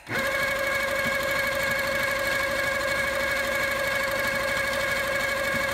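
HQ Sweet Sixteen sit-down longarm quilting machine running at a steady speed, its motor hum and whine carrying the rapid chatter of the needle stitching a free-motion swirl.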